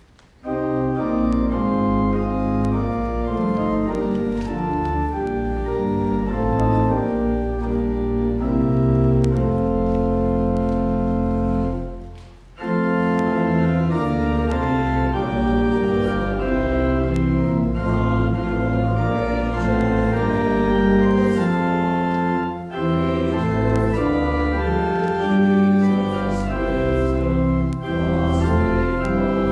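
Church organ playing in full, sustained chords over a deep pedal bass, starting about half a second in. It breaks off briefly about twelve seconds in, then carries on.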